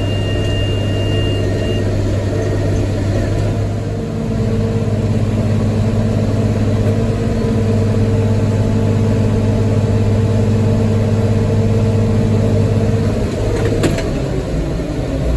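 Tractor engine running steadily while pulling a hay baler, getting a little louder about four seconds in. A single sharp click near the end.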